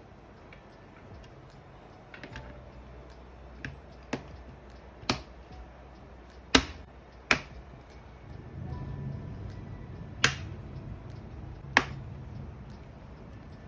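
Sharp, separate clacks from the Feker IK75 Pro mechanical keyboard, about seven of them spaced one to three seconds apart, over quiet background music.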